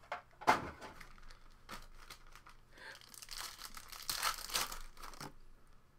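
Wrapper of a Panini Prizm basketball trading card pack crinkling and tearing as it is opened by hand: a sharp crackle about half a second in, a few small clicks, then a longer spell of crinkling in the second half.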